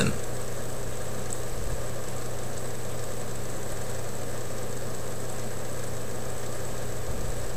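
Steady low-pitched hum over a faint even hiss.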